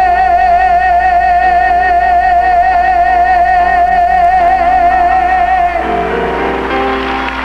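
A woman singer holds the final note of a bolero with a steady vibrato for about six seconds over sustained band chords and plucked strings. The note ends about six seconds in, and applause begins as the band closes.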